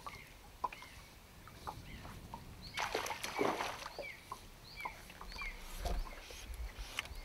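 A trout splashing at the surface as it takes the fly and is hooked, a burst of splashing about three seconds in. Short high chirps come and go throughout, over a low rumble of wind on the microphone.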